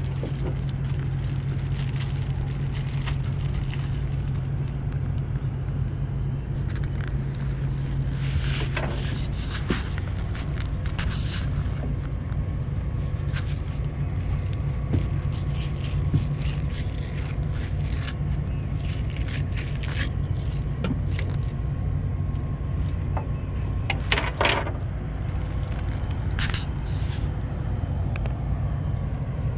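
Steady low engine hum, with scattered short scrapes and clicks of a fillet knife working on a cutting board as cod fillets are trimmed. The clearest scrapes come about nine seconds in and twice near the end.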